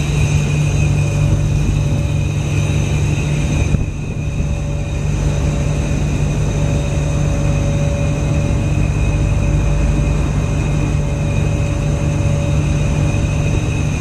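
Steady drone of a ferry's engines, with a brief dip in level about four seconds in.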